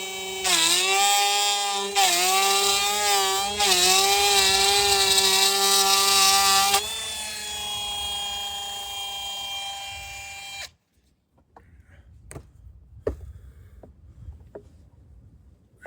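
An electric power saw cutting wood. The motor's whine sags in pitch each time it bites, about three times, then runs free once the cut ends. The sound stops abruptly a few seconds later, followed by a few light knocks.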